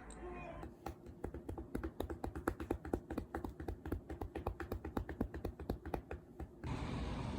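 A fast run of small sharp clicks, about seven a second, that goes on for around six seconds and then stops.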